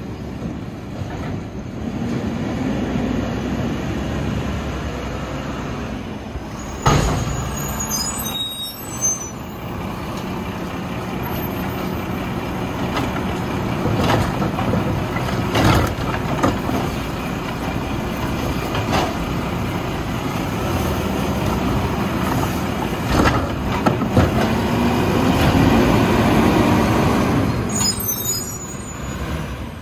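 Mack MRU garbage truck with a Heil Dura Pack body running at close range, its engine and hydraulics working steadily, with a sharp clank about a quarter of the way in and short high squeals then and again near the end. In the second half the engine note rises and swells for several seconds before dropping away.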